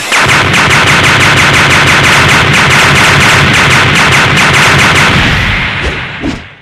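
Loud rapid-fire barrage sound effect, like machine-gun fire, that starts abruptly and keeps up a fast even rattle of blasts for about five seconds before fading out near the end.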